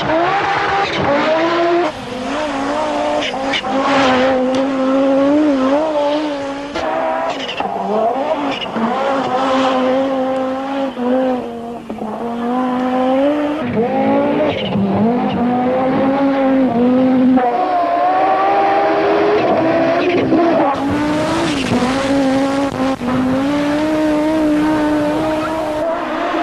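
Audi Sport Quattro S1's turbocharged five-cylinder engine revving hard, its pitch climbing and dropping again and again as it works up and down through the gears, with abrupt breaks every few seconds between passes.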